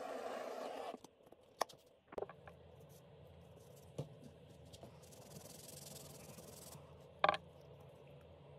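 Handheld gas torch flame hissing steadily, cut off abruptly about a second in. Then a few light knocks and clicks as the small wooden log box is handled, the sharpest one near the end.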